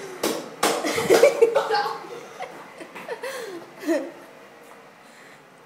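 Girls laughing, with a few sharp knocks near the start.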